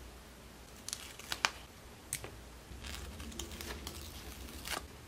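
Scattered small clicks and taps as a pointed hobby tool and fingers handle a small plastic HO-scale model coil while a sticker is pressed onto its end, the sharpest click about a second and a half in.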